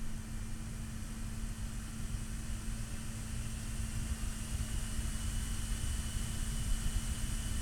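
Dynatron K2 CPU cooler fan running, with a steady low hum and an airy whoosh of air. About three seconds in, a high whine joins and rises slightly in pitch as the airy hiss grows brighter.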